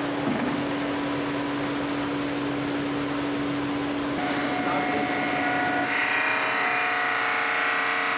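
Granite cutting machine's water-cooled circular saw running as it cuts a granite slab: a steady machine whine over the wash of coolant water. It grows louder and brighter about six seconds in.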